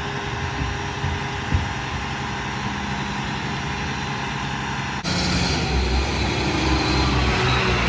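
Mack MRU rear-loader garbage truck's engine running steadily at idle. About five seconds in the sound cuts to the truck driving, its engine louder and deeper.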